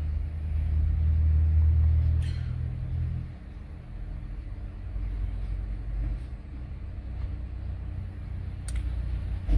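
Electric engine cooling fan of a 2009 Cadillac DTS running with the ignition on and the engine off during engine-computer programming: a low steady rumble that is stronger for about the first three seconds, then drops to a quieter steady level.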